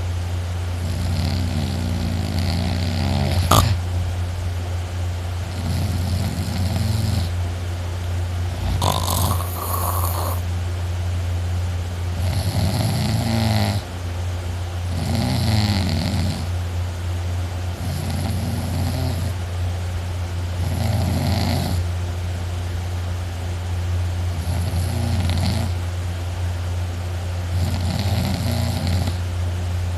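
A person snoring loudly in deep sleep, about ten snores at an even pace of one every two to three seconds, over a steady low hum. A sharp click comes about three and a half seconds in.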